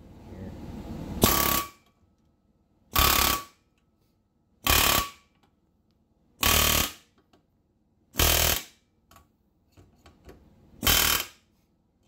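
Pneumatic air hammer hammering a chisel tip against a bushing in a control arm clamped in a vise, driving the bushing out. It fires in six short bursts of about half a second each, a second or two apart, the first building up over about a second.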